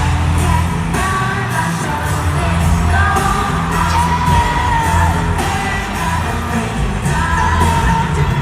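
Loud live pop concert music in an arena, with a sung lead vocal over heavy bass, and fans yelling and whooping along.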